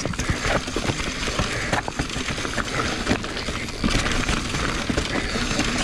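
Mountain bike riding over a rough dirt trail: steady tyre noise with the bike rattling and knocking in many small, irregular clicks.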